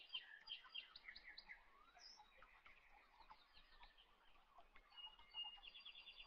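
Near silence with faint birds chirping in the background: short repeated calls throughout, and a quick run of chirps near the end. Light handling of a plastic packaging bag.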